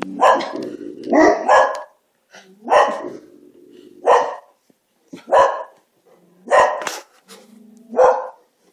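Dogs barking in loud single barks, about one a second, with low growls held between some of the barks. It is alarm barking at something the dogs sense outside.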